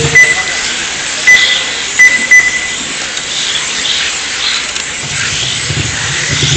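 Several short, high electronic beeps in the first three seconds, typical of an RC race lap-timing system as 1/10-scale 10.5T brushless electric touring cars cross the line. Under them runs a steady whirring hiss from the cars' motors and tyres on asphalt.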